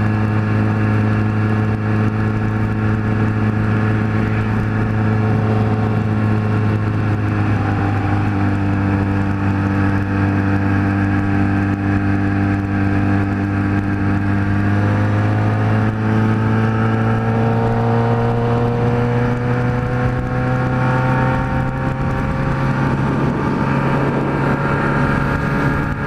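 Kawasaki Z1000 inline-four engine running through a 4-into-1 exhaust while the bike cruises at steady road speed. Its pitch climbs slowly through the second half as the bike gains speed.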